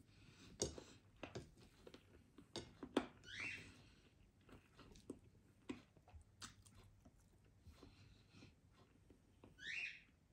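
Close-up chewing and biting of food being eaten by hand, with many small sharp clicks and mouth sounds. There are two short hissing sounds, one about three seconds in and one near the end.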